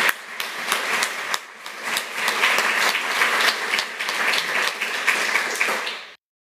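Audience applauding, a dense patter of many hands clapping that cuts off abruptly near the end.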